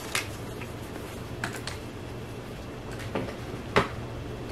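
Scattered light clicks and knocks from handling a drill and bit, about five in all, the sharpest knock near the end, over a steady low hum.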